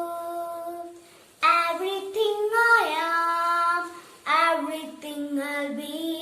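A child singing a devotional praise song unaccompanied, in held, sustained phrases with short breaths between them.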